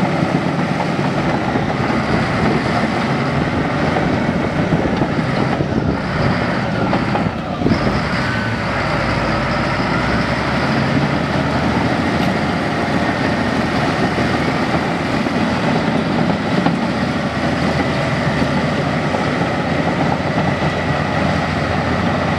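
Heavy construction machine engine running steadily and loudly, with a brief change in the sound about seven seconds in.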